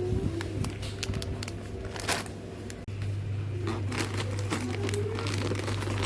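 Packaging crinkling and rustling as it is handled, with scattered small clicks, over a steady low hum.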